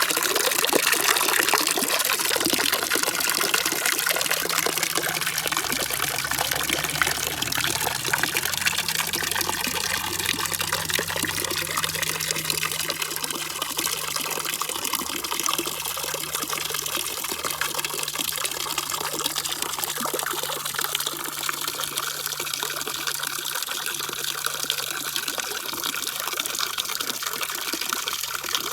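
Steady rush of running, splashing water, bright and hissy, with a faint low hum underneath through the middle stretch.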